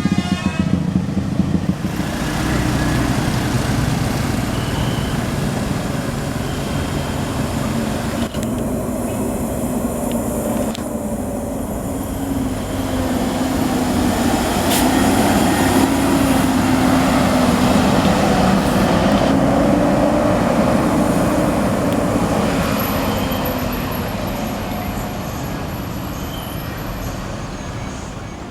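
Tour bus engine and tyres going past on the road: a steady rumble with road noise that grows to its loudest about halfway through, then slowly fades.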